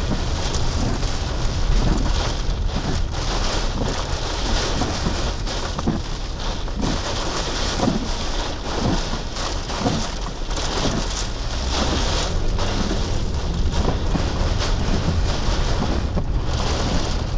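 Heavy rain and strong wind driving against a vehicle close to a tornado: a steady hiss of rain with a deep rumble of wind buffeting the vehicle and microphone.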